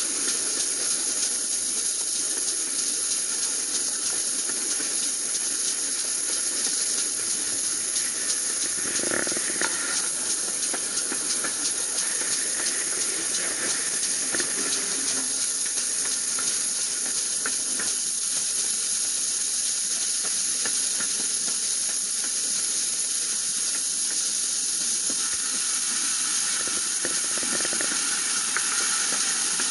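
Steam locomotive Foxcote Manor on the move, with a steady hiss of steam and rushing air close to the coupled carriage, and faint running noise from the train on the rails.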